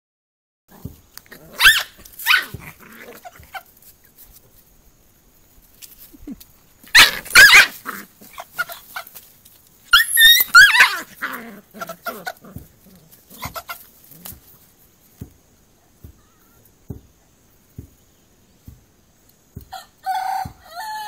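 A puppy and a rooster fighting: sharp yelping and squawking cries come in three loud bursts, about two, seven and ten seconds in, with small scuffling taps in between. A rooster's clucking call starts near the end.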